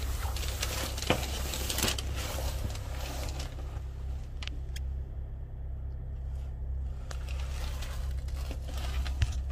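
Low, steady idling hum, most likely the minibus's own engine heard from beneath the chassis. Rustling, crackling and a few clicks from the phone being handled come during the first two seconds and again near the end.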